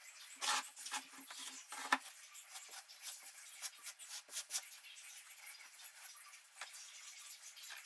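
Faint, irregular scraping and light taps of grout being pressed into the joints of a ceramic tile backsplash, a little louder in the first two seconds.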